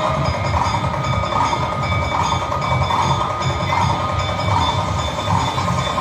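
Loud, distorted music with a steady beat, a little over one beat a second, playing for dancing.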